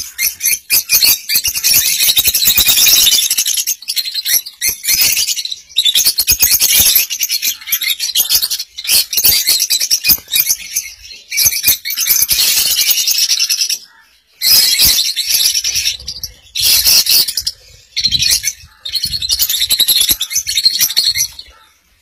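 A flock of lovebirds chattering and screeching loudly in rapid, high-pitched bursts, with a few short pauses.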